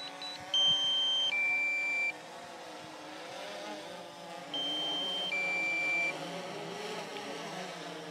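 Quadcopter drone's propellers humming with a wavering pitch as it descends on automatic return-to-home after a low-battery warning. Twice, about four seconds apart, a drone-control warning gives a two-tone beep, a higher tone then a lower one, each under a second.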